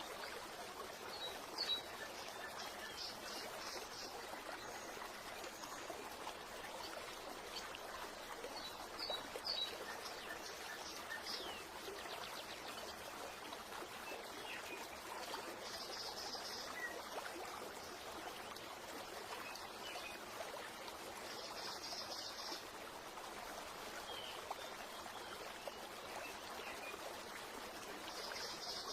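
Steady running water with birds chirping over it; a short trilled call comes back about every six seconds.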